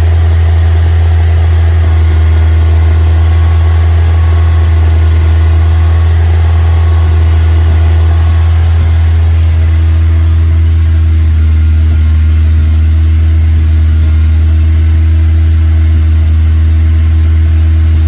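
Ford Zetec four-cylinder engine in a Westfield sports car running steadily at fast idle, with the misfire that the owner is recording. Its note shifts slightly about halfway through.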